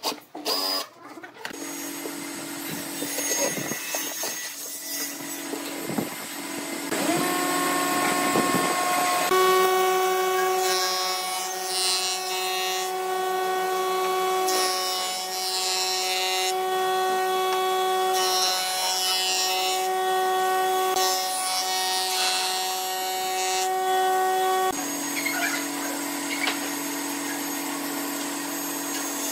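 Wood lathe running with a steady motor whine while a turning tool scrapes and cuts the spinning wood; the pitch of the whine jumps abruptly a few times.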